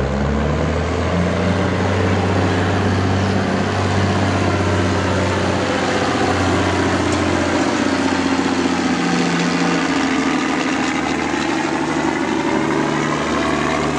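Semi truck's diesel engine working hard under load while pulling a weight sled, a loud steady drone.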